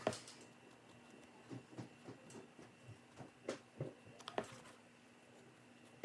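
Scattered light taps and handling noises as a paintbrush and hands work over a football cleat: a few short clicks and knocks, irregularly spaced, over a faint steady room hum.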